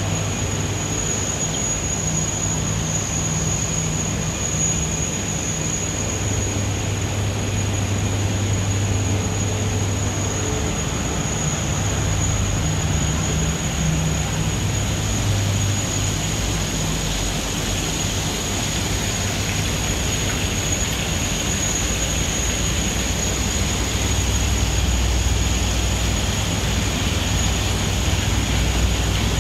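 Steady airport terminal background noise: a low hum under an even hiss, with a thin high-pitched whine above it.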